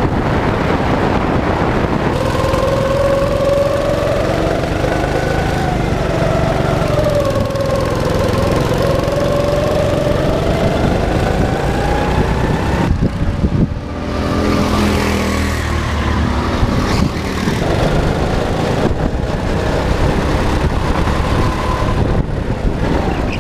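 Go-kart engine running under changing throttle as the kart is driven around the track, its pitch rising and falling with speed. About halfway through the engine note drops briefly, as if off the throttle into a corner, then climbs again.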